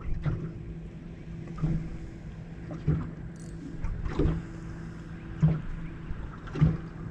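Small waves slapping against the hull of a small boat: a short knock about every second and a bit, over a steady low hum.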